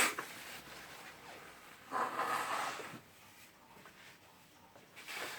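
A brief handling noise, a scrape or rustle lasting under a second, about two seconds in, with a fainter one near the end, as the cordless drill and tools are moved about on the bench.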